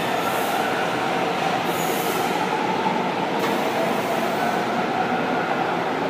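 São Paulo Metro train standing at the platform, running with a steady mechanical hum and faint whine. There are two short high hisses in the first two seconds, then a sharp click and a hiss a little past halfway as the car doors slide open.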